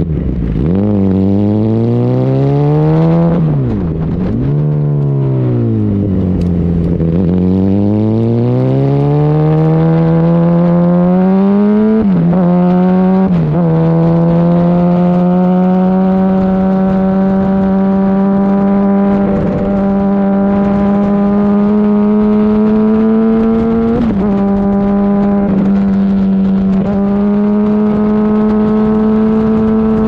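2008 Yamaha R1's inline-four engine heard from on board while riding. Its pitch rises and falls several times over the first dozen seconds, then holds steady at a constant speed, with a few brief dips. Wind and road noise run underneath.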